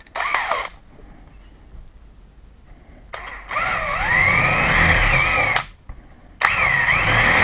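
Power drill with a 10 mm bit drilling through a door, in two runs: the first about three and a half seconds in, its motor whine rising in pitch as it speeds up, the second starting near the end.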